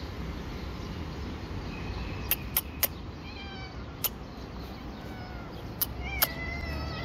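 A hungry domestic cat meowing about three times, the last call the loudest, begging for food. A few sharp clicks are heard between the meows.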